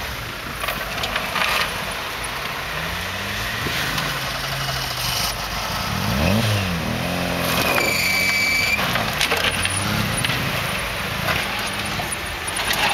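Fiat Panda 4x4's engine revving up and down in low gear as the car crawls over rough dirt ruts and mounds. A short high whistle sounds about eight seconds in.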